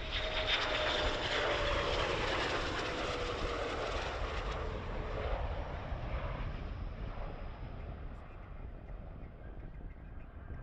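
Eurofighter Typhoon's twin EJ200 turbofans passing low on approach: a loud jet whine that falls in pitch as the fighter goes by, fading to a lower rumble after about five seconds.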